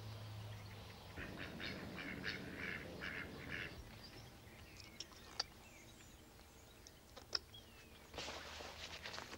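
Mallard ducks quacking: a quick run of about eight short quacks in the first few seconds, then a few faint clicks. A rustling hiss starts near the end.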